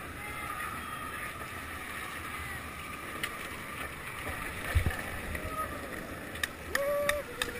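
Longboard wheels rolling over asphalt with a steady rumble as several skaters ride downhill. There is a low thump about halfway, then a few sharp clicks and a person's short held call near the end.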